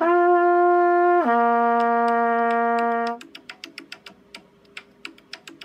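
Trumpet playing an open-valve lip slur: a tongued upper note held about a second, then slurred down a fourth to a lower note held about two seconds (sounding F down to B-flat, written G down to low C). A run of faint, irregular clicks follows the notes.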